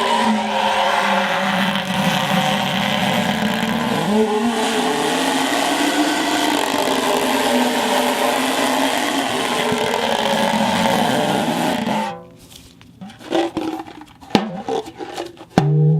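A rubber-made sound effect: a loud, continuous rubbing squeal with wavering pitch, like a racing car's engine and tyres, which cuts off suddenly about twelve seconds in. Short, separate twanging notes follow, like plucked strings.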